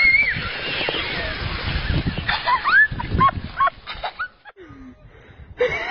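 A child's excited high-pitched cries while sliding down a snowy slope: a long gliding squeal at the start, then several short calls about two to four seconds in.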